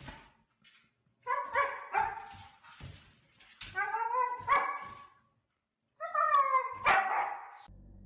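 Husky yipping and yowling in pitched, rising-and-falling calls, in about four bursts with short pauses between them.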